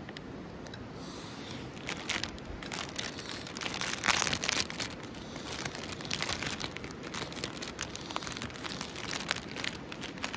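Plastic snack wrapper crinkling and tearing as it is pulled open by hand, in irregular bursts that are loudest about four seconds in.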